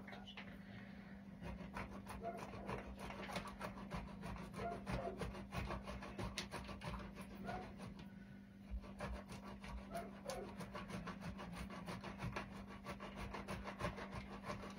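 Hard cheese being grated on a coarse grater: faint, repeated rasping strokes. A steady low hum runs underneath.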